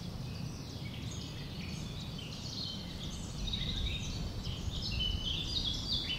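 Small birds chirping in quick short calls over a steady low background rumble; the calls get busier and louder from about halfway through.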